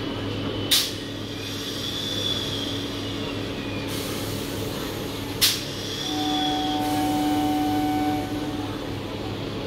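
Electric local train (EMU) running with a steady electrical hum. Two sharp clicks come about a second in and halfway through, and a steady pitched tone is held for about two seconds after the second click.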